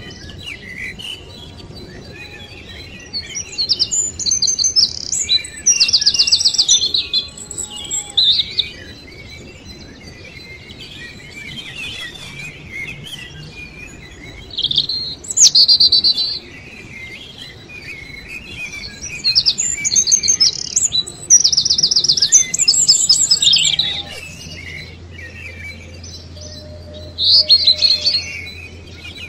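Songbirds chirping and singing in several bursts of fast, high trills, each a second or two long, with quieter gaps between.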